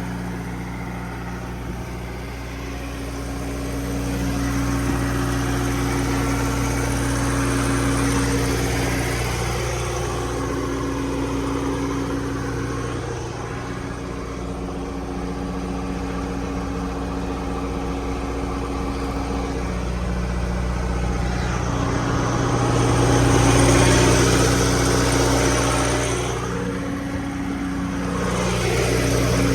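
A diesel engine idling steadily, with a rushing noise over it that swells and fades and is loudest about two-thirds of the way through.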